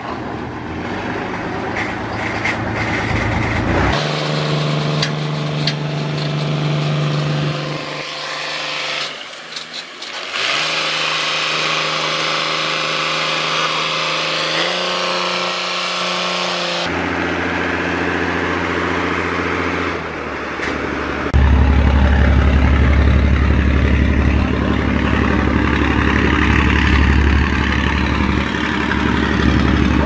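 An engine running steadily, a low hum held at one pitch that jumps abruptly a few times. About two-thirds of the way through it becomes louder and deeper.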